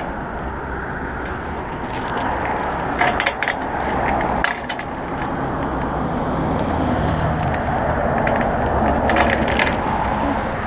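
Heavy steel chain and lock clinking and rattling in a few short bursts as a bicycle is chained to a metal signpost, over steady road traffic noise.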